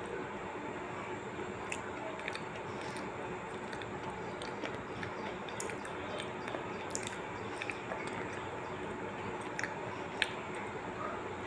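Soft mouth clicks and smacks of someone chewing with closed lips, scattered irregularly over a steady background hiss. One sharper click comes about ten seconds in.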